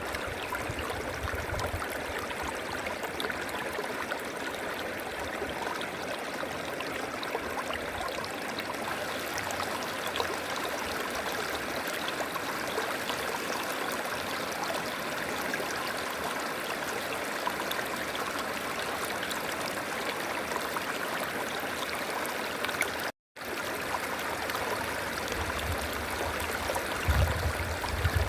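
River water flowing and rushing steadily over rocks, with a split-second break in the sound about 23 seconds in and a low rumble rising near the end.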